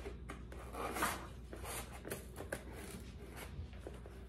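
Scissors cutting through cardboard in small, irregular snips while the cardboard is worked in the hand.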